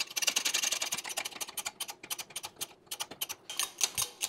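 Rapid metallic clicking as a universal joint and socket are worked in a hydraulic shop press: a quick clatter at first, then separate sharp clicks a few times a second.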